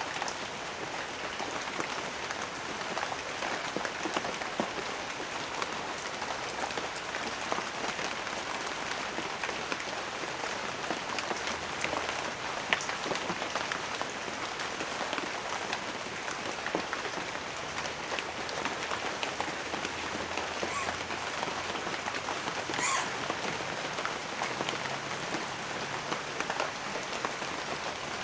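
Steady rain falling, with many separate drops tapping on a surface. One drop sounds louder and brighter a little before the end.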